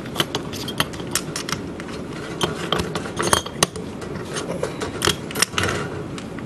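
Irregular light metallic clicks and taps as a 400-day clock mainspring and the parts of a mainspring winder are handled and set in place. The clicks come at uneven intervals, a few sharper ones about three and a half seconds in and again about five seconds in.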